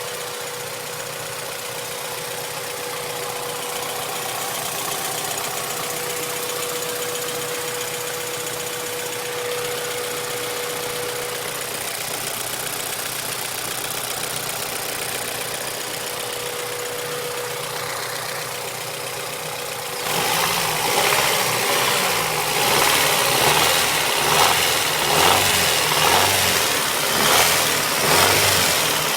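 Honda B18C DOHC VTEC four-cylinder engine running with a knock from its VTEC lost-motion assemblies, steady at first; about two-thirds of the way through it gets louder and swells and falls about once a second.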